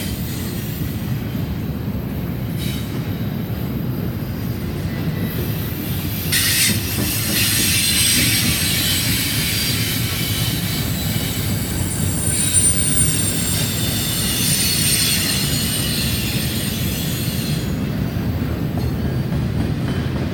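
CSX double-stack container train rolling past, its cars' wheels making a steady rumble on the rails. From about six seconds in, a high-pitched metallic wheel squeal joins and carries on for about eleven seconds before fading.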